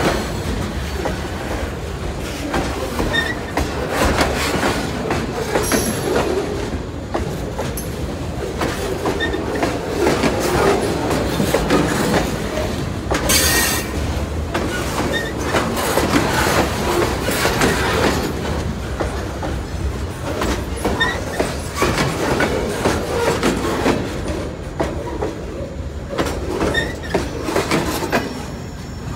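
Freight train of lumber-loaded centerbeam flatcars rolling past, wheels clattering over the rail joints with brief wheel squeals. The sound eases off near the end as the last car goes by.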